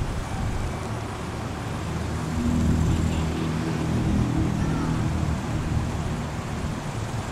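Road traffic rumble, with a vehicle engine growing louder in the middle and then easing off.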